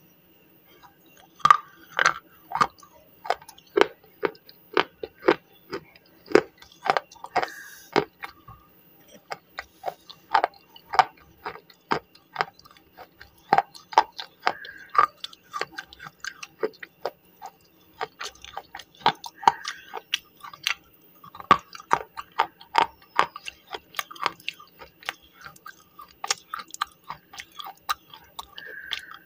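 Slate pencil being bitten and chewed close to the microphone: a steady run of sharp, dry crunches, about two a second.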